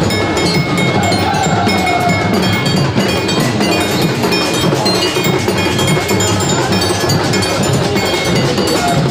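Singha baja procession band playing loud and without a break: large barrel drums beating a fast rhythm under ringing, clanging metal cymbals.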